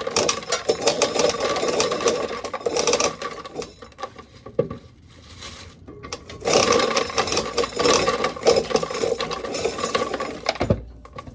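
Old corn sheller running, a dense rattling and grinding clatter as ears of corn go through it to strip the kernels. It comes in two long bouts with a quieter pause in the middle, and there is a low thump near the end.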